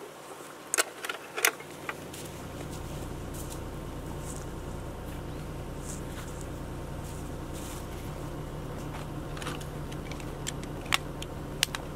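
Camping gear being handled at a small folding table: a few sharp clicks and clinks near the start and again near the end. Under them a steady low mechanical hum sets in about two seconds in.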